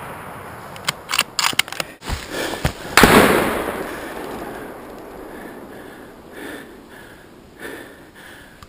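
A hunting rifle shot echoing and rolling away across the valley, a few sharp metallic clicks of the rifle's action being worked, then a second loud rifle shot about three seconds in whose echo fades out slowly over several seconds. Faint rustling of brush follows.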